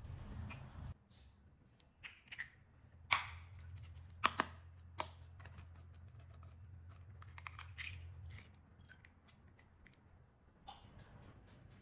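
Eggs being cracked and separated by hand over glass bowls: sharp taps of eggshell against glass and small clicks and crackles of shell. The loudest taps come about three to five seconds in.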